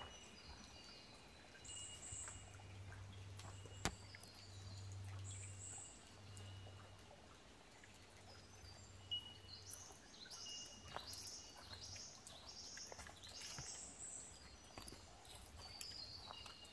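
Faint forest birdsong: several birds calling, with a quick run of repeated high chirping notes in the second half and a thin high whistle that comes and goes. A low hum in the first half and a single sharp tap about four seconds in.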